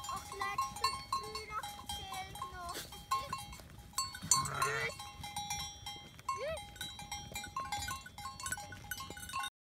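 Valais Blacknose sheep bleating, with a loud bleat about four and a half seconds in and another about six and a half seconds in, over steady ringing of bells and small clicks. The sound cuts off suddenly just before the end.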